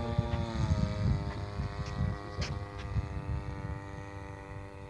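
The RCGF 26 cc two-stroke gasoline engine of a model airplane drones steadily in flight at a distance. Its pitch dips slightly about half a second in, and it fades as the plane flies farther off. Wind gusts on the microphone add a low rumble throughout.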